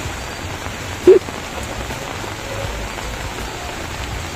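Steady rain falling on a street and railway track, with one short, loud pitched sound about a second in.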